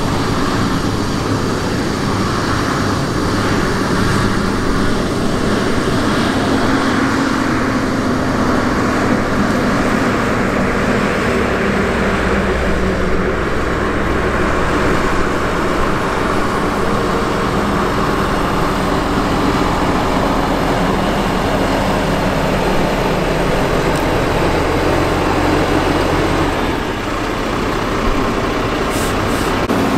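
Steady vehicle drone: engine and travel noise with a low hum underneath, unbroken throughout.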